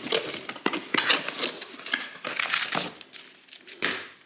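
Packaging being handled and opened, with crinkling and rustling that is busiest for the first three seconds, then a final burst near the end.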